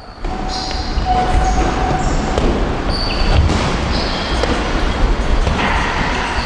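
Boxers' footwork on a ring canvas: shoes squeaking in short high chirps and feet thudding on the mat, with a few sharp knocks, over a steady low rumble.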